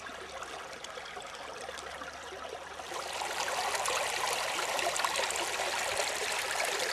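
Shallow brook running and splashing over rocks, a steady rush of water that grows louder about three seconds in.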